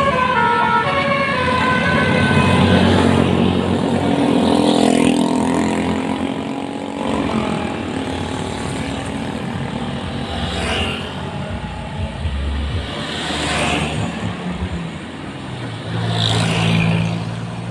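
A melodic multi-tone 'telolet' bus horn finishes its tune about a second in. Then heavy vehicles, buses among them, pass close by with engine and road noise, making three whooshing pass-bys in the second half and a low engine drone near the end.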